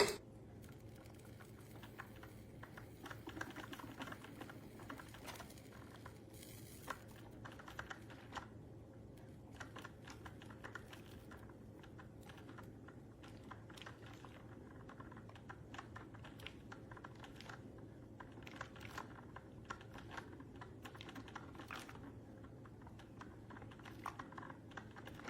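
A small drip coffee maker, a Mr. Coffee 5-cup Mini Brew, switched on with one sharp click. Then faint, irregular ticking and crackling follow as it heats the water to start brewing.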